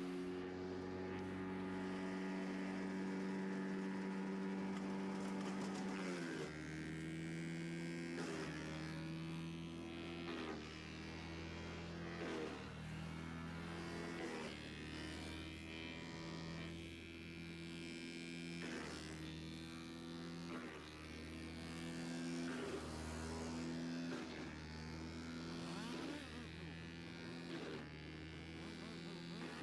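Vermeer BC600XL wood chipper running with a steady pitched drone that dips in pitch about six seconds in, then sharp cracks recurring every couple of seconds as the engine loads and recovers.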